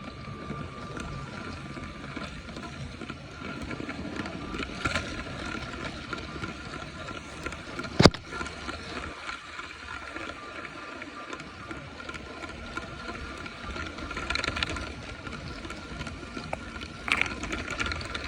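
Small electric motor of a Lego train running with a steady whine. A single sharp click about eight seconds in is the loudest sound.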